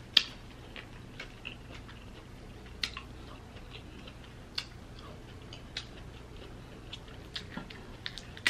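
Cooked crab shell being cracked and picked apart by hand: irregular small cracks and clicks, the sharpest just after the start.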